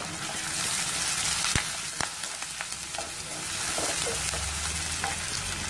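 Onions, green chillies and curry leaves sizzling in hot oil in a kadai, stirred with a wooden spatula. A couple of sharp clicks come about a second and a half and two seconds in.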